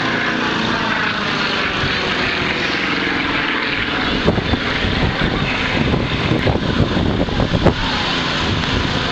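Sukhoi Su-26 aerobatic plane flying overhead, its nine-cylinder radial engine and propeller running steadily. From about four to eight seconds in, uneven low knocks and rumbles break in over it.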